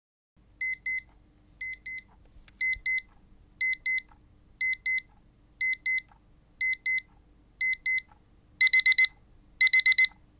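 Electronic alarm clock beeping: high double beeps about once a second, switching near the end to louder, faster runs of four beeps, the escalating stage of the alarm. A faint steady hum lies underneath.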